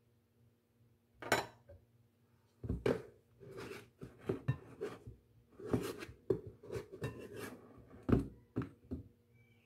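Irregular knocks and clinks of a measuring cup and a knife against a stainless steel canister and a stone counter, with scraping and rustling in between, as an ingredient is scooped out of the canister.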